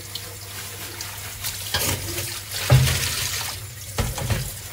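Kitchen tap running into a stainless steel sink while raw chicken pieces are rinsed by hand under the stream. Splashes and knocks in the sink come a little under two seconds in, again a little under three seconds in (the loudest, a thump), and about four seconds in.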